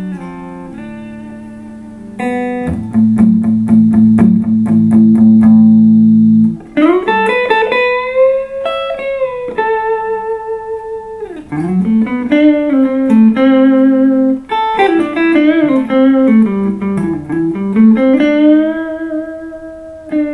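2008 Epiphone Sheraton II semi-hollow electric guitar played clean through a Fender Blues Junior valve amp. A held chord rings out, then a chord is picked rapidly about five times a second. From about seven seconds in comes a single-note lead line with string bends and vibrato.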